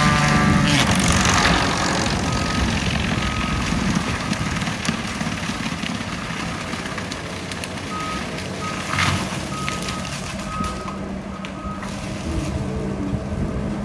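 John Deere compact track loader's diesel engine running with an Angry Chipmunk disc mulcher head on the front, loudest in the first second or so. The loader's backup alarm beeps steadily in two spells, the sign that the machine is reversing.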